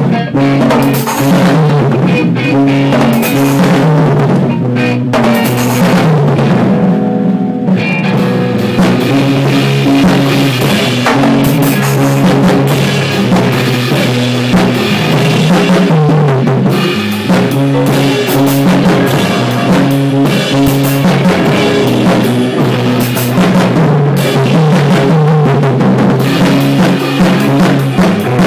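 Rock band playing a song live, with the drum kit loud and close and electric guitars over it. The drums and cymbals drop out for about a second around seven seconds in while the guitars carry on.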